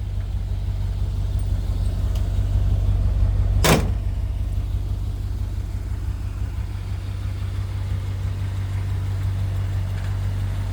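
1966 Chevrolet C10 pickup's engine idling steadily, with a single sharp knock about three and a half seconds in.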